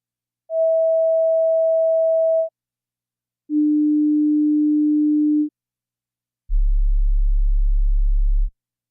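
Three pure test tones, each held steady for about two seconds with a second of silence between them and each lower than the last: a fairly high tone, a middle one, then a very deep one. They test whether headphones or speakers can reproduce the very low frequencies of heart sounds.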